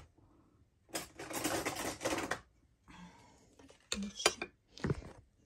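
Kitchenware clinking: a few sharp knocks of dishes and utensils in the second half, the loudest about four seconds in, after a short noisy rustle about a second in.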